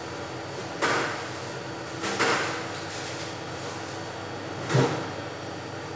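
Three short knocks or bangs off-camera, about a second and a half apart, over a steady background hum.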